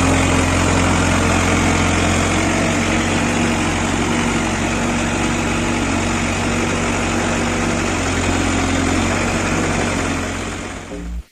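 Heavy diesel engine idling steadily with a strong low hum, fading out near the end.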